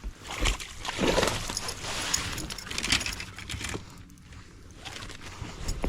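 Water splashing and sloshing for about four seconds, with scattered sharp splashes: a hooked largemouth bass thrashing at the surface as it is brought to the boat.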